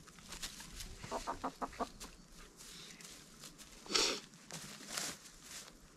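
A chicken clucking: a quick run of about six short clucks about a second in, then a louder, harsher sound about four seconds in.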